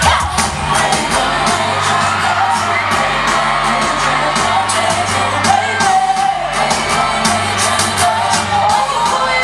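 Live pop song with female group vocals sung over an amplified backing of steady bass notes and regular cymbal ticks.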